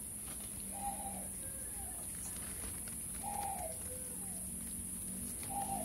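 Baby macaque giving three short, high coo calls about two and a half seconds apart.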